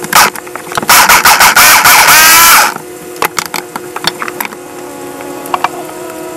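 Ninja food processor chopping cauliflower florets into rice: its motor is pulsed several times in quick succession, then held on for about a second, the whine rising in pitch each time it spins up. Afterwards come light clicks and knocks as the jar is handled.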